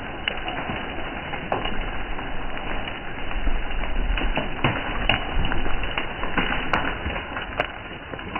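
Rain falling on a patio, a steady hiss with many sharp drops tapping close by, in an uneven patter.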